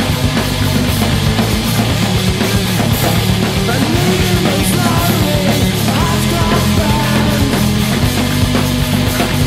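Loud rock music from a band recording, with a steady low bass and, about four to seven seconds in, a line sliding up and down in pitch.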